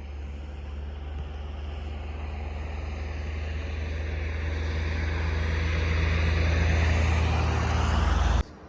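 A motor vehicle's engine and road noise, a steady low hum that grows steadily louder and then cuts off suddenly near the end.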